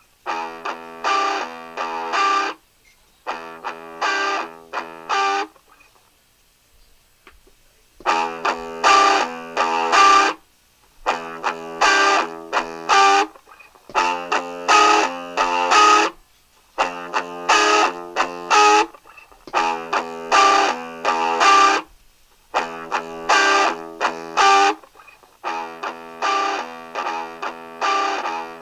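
Music played on a Maschine Mikro pad controller: short, pitched chord hits in quick repeating phrases, breaking off for about two seconds some five seconds in and then resuming.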